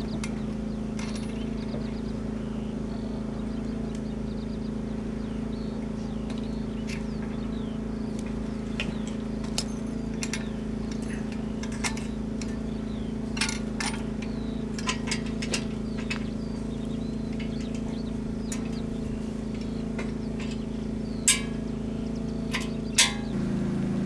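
A motor running with a steady hum, with scattered sharp clicks and clinks over it. The hum shifts in pitch near the end.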